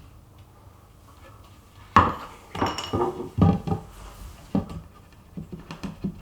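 Clatter of small metal objects being handled, with knocks and ringing clinks. It starts about two seconds in, is heaviest for the next couple of seconds, then thins to scattered lighter clicks.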